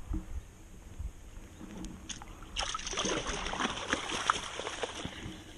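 Water splashing and sloshing close by, starting about two and a half seconds in and stopping suddenly near the end.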